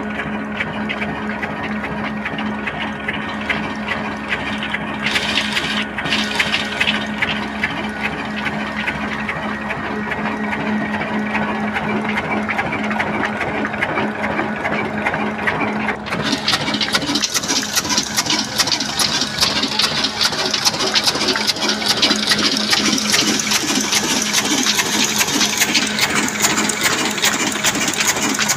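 Old diesel engine running steadily with a fast mechanical clatter, driving a small wheat flour mill. About halfway through, a harsher high hiss joins in.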